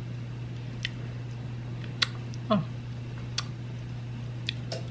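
Steady low hum with a few light, sharp clicks scattered through it, and a brief squeak falling in pitch about halfway through.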